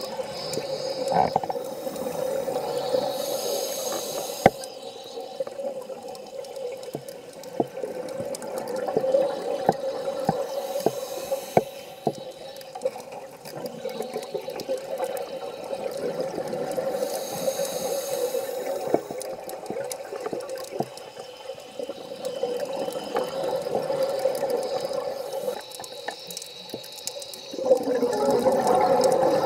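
Scuba diving heard underwater: a regulator's breathing hiss and bubbling exhalations coming and going every several seconds, over a steady low hum and scattered small clicks.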